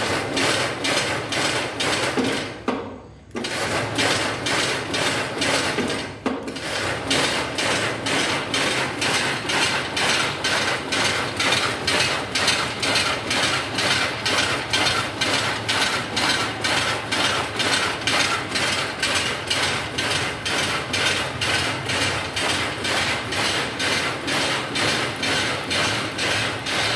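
Power loom running: a regular mechanical clatter of the loom beating up, about three beats a second, started from its push-button control panel. It stops briefly about three seconds in, dips again near six seconds, then runs steadily.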